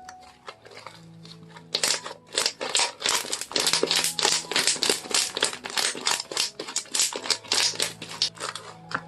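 Slime being squished and worked by hand, making a dense run of crackling clicks and pops that starts about two seconds in, over soft background music.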